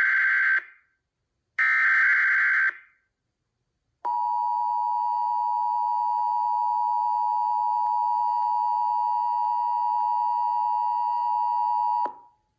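Emergency Alert System encoder sending the end of its SAME header: two short digital data bursts about a second long with a second's gap between, the first already under way. About a second after them comes the EAS two-tone attention signal, one steady tone held for about eight seconds before cutting off sharply.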